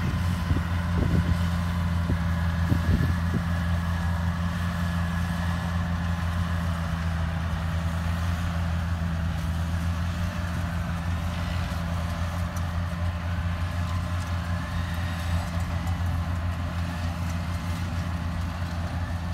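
Yanmar rice combine harvesters' diesel engines running steadily under harvesting load, a continuous low drone with a steady hum.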